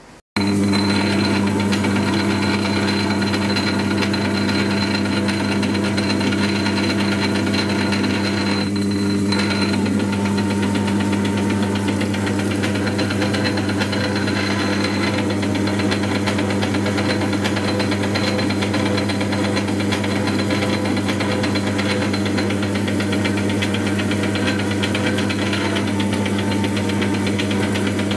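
1942 South Bend 9-inch lathe running steadily on its flat-belt drive, with a steady motor hum and a thin high whine, while it machines a car A/C compressor pulley held in the chuck.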